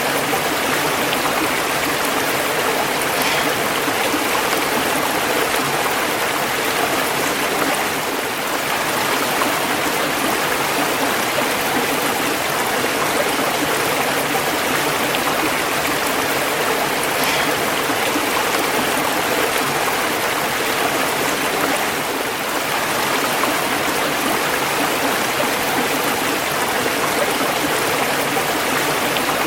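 Running water: a stream or small waterfall rushing steadily over rocks.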